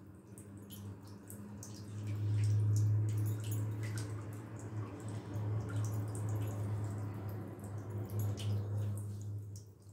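A steady low hum, loudest through the middle and stopping near the end, under light scattered clicks and rustles from biscuit crumbs being sprinkled by hand onto a trifle.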